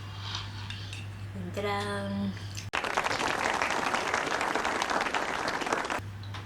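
About three seconds of applause that cuts in suddenly and cuts off just as suddenly, like an added sound effect. A short vocal sound comes just before it.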